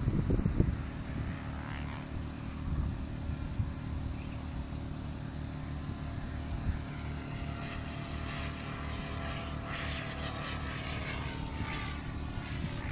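Radio-controlled F3C aerobatic helicopter in flight: a steady pitched drone from its drive and rotors, with faint shifts in pitch in the last few seconds.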